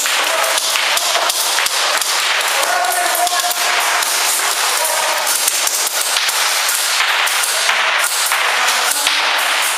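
Airsoft guns firing rapidly, many shots overlapping in a steady, dense clatter.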